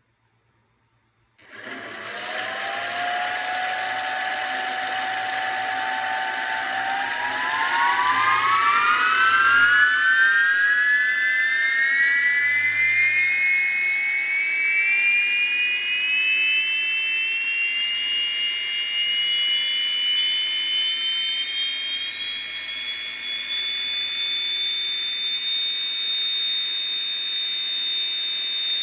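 3D-printed model of a Pratt & Whitney F100 low-bypass jet engine spinning up with a loud, whistling whine. The whine starts suddenly about a second and a half in and holds one pitch. From about seven seconds it climbs steadily higher, then levels off at a high pitch near the end.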